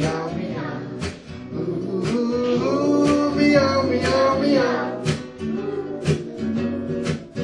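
Music with a steady beat, about one beat a second, and a melody carried over held low notes.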